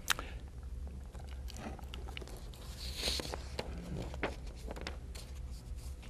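Low steady room hum on a lapel microphone, with a sharp click just after the start, scattered faint clicks, and a soft breath-like hiss about three seconds in.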